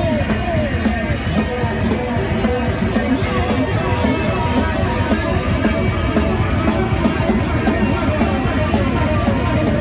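Loud live noise rock from a bass-and-drums duo: heavily distorted bass guitar and fast, busy drumming, playing without a break.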